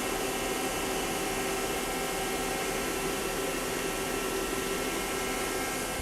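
Steady machine hum of a powered-up Star SV32J CNC Swiss lathe and its bar feed: an even whirring hiss with several steady tones, unchanging throughout.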